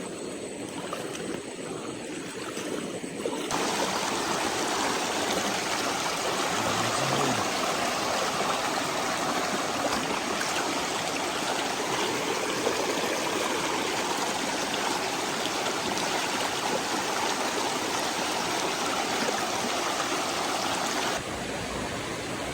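Steady rushing of a stream flowing over rocks, with no pitch or rhythm. It gets clearly louder about three and a half seconds in and falls back abruptly near the end.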